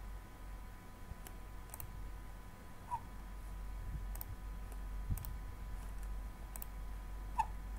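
Computer mouse clicking, about seven short sharp clicks at irregular intervals, over a steady low hum.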